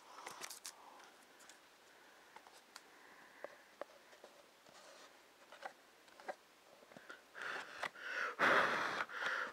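Styrofoam packing peanuts and a Betamax tape's case being handled: faint scattered clicks and taps, then louder rustling and scraping in the last two seconds as a peanut stuck to the case is picked at.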